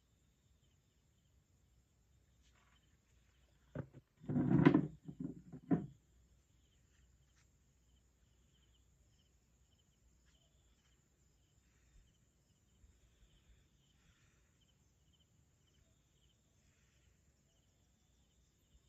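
Faint night insects: a steady high-pitched trill with regular chirps, typical of crickets. About four seconds in, a short cluster of louder low bumps cuts in for about two seconds.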